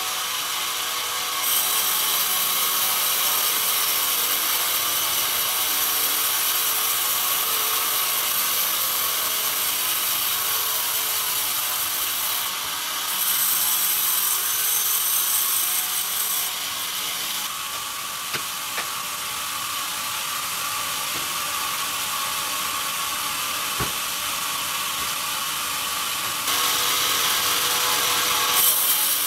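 Log band saw cutting pine logs: a steady hiss of the blade through the wood with the clatter of the log carriage mechanism. The sound changes abruptly in level and tone a few times.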